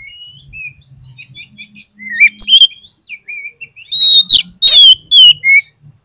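Oriental magpie-robin singing a run of varied whistled phrases, softer at first, then louder from about two seconds in, with the loudest, harsh chattering notes near the end.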